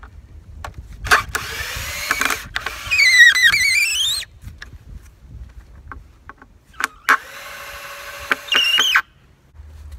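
Cordless drill driving screws through a board into a hard ash log, in two runs. The first starts about a second in and lasts about three seconds, its whine sagging and rising as the motor strains. The second, shorter run comes about seven seconds in.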